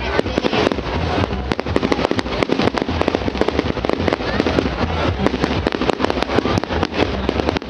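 Fireworks display: a rapid, continuous barrage of cracks and bangs.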